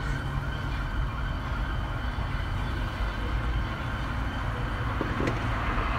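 Steady low rumble of road traffic on a highway.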